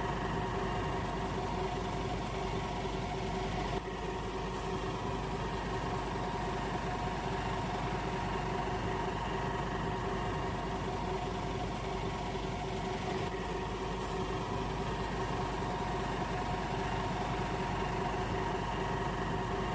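A bus engine idling steadily: a constant low hum with several steady tones that neither rise nor fall.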